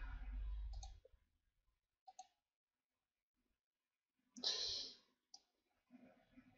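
Faint computer mouse clicks and scroll-wheel ticks, a few scattered sharp ticks, with a short soft rush of noise about four and a half seconds in.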